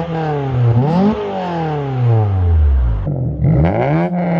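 Honda Prelude SH's H22 four-cylinder, running a PLM header and Greddy muffler, accelerating hard past, with a gear change about a second in and its note then falling away. After a cut about three seconds in, a 9th-gen Civic Si's K24 four-cylinder revs up in rising sweeps.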